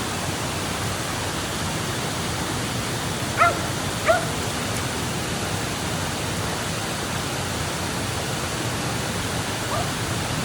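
Steady rush of a waterfall on a creek. A dog gives two short barks a little over three seconds in, and two fainter ones near the end.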